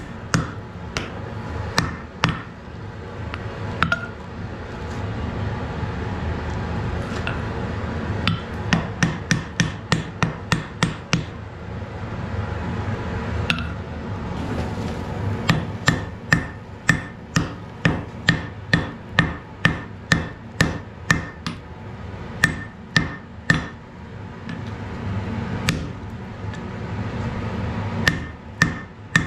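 Hand hammer striking red-hot wrought iron on a steel anvil during forging of an axe head: runs of blows, about two to three a second, broken by short pauses, over a steady low background noise.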